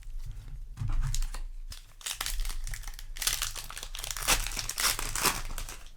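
Foil wrapper of a Magic: The Gathering play booster pack crinkling and tearing as it is handled, in irregular crackly rustles that are densest from about two seconds in until shortly before the end.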